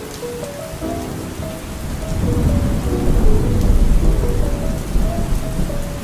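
Steady rain falling, with a deep rolling thunder rumble that builds about two seconds in and slowly fades, under a soft, quiet melody.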